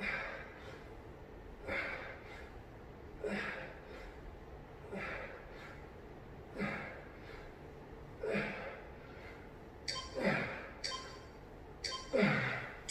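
A man's heavy breathing while holding a back-extension exercise: forceful exhales about every second and a half, coming closer together in the last few seconds, when a couple of longer exhales carry his voice and fall in pitch with the strain.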